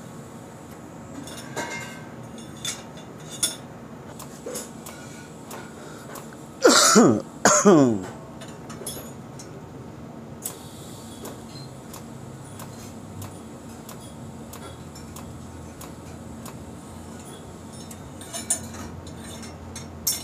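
TIG welding a steel exhaust header pipe: a steady low hum with scattered light metallic clicks and clinks. About seven seconds in, two loud short sounds sweep quickly down in pitch, one right after the other.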